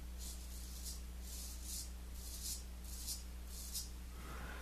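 Gold Monkey 777 safety razor scraping through lathered stubble on the neck: about five short, crisp strokes, each a fraction of a second long, faint over a steady low hum.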